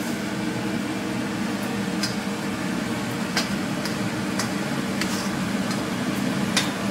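A kitchen chimney fan runs with a steady hum, while a metal spatula scrapes and taps now and then against an aluminium kadai as thick semolina halwa is stirred.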